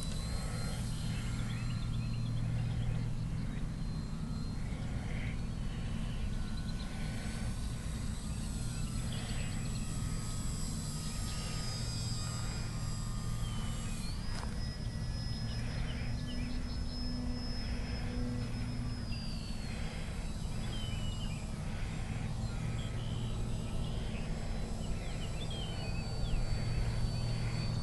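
AXI 400-size 980KV brushless motor and 9x6 slow-fly propeller of an electric foam RC biplane, whining thinly overhead. The whine rises and falls in pitch with the throttle, over a steady low rumble.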